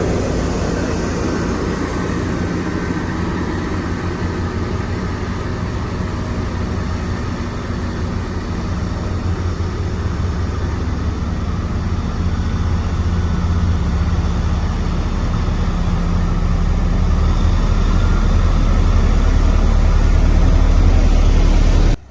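Motor grader's diesel engine running steadily with a heavy low hum, growing gradually louder over the second half and cutting off suddenly just before the end.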